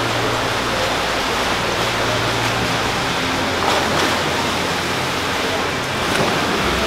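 Swimmers splashing through laps in an indoor pool, a steady wash of water noise with a low hum underneath.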